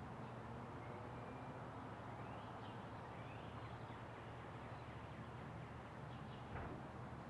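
Quiet outdoor background hiss with a steady low hum, a few faint high bird chirps, and a single soft knock near the end.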